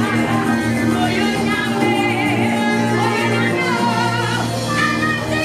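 Live gospel worship music: a woman sings into a microphone over a full band, with steady held bass notes underneath.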